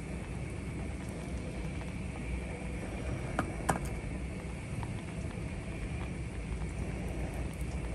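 Portable butane gas stove burning steadily under a pot of boiling instant noodles, a constant low rumble and hiss, with two light clicks about three and a half seconds in.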